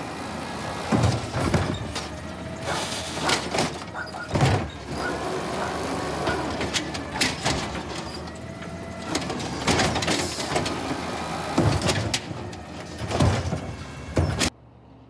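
2016 Peterbilt 320 side-loader garbage truck's automated arm lifting a green-waste cart, shaking it empty into the hopper and setting it back down, over the running truck engine. Repeated bangs and knocks of the cart and its lid against the hopper, the loudest sounds, come every second or so. The sound cuts off abruptly near the end.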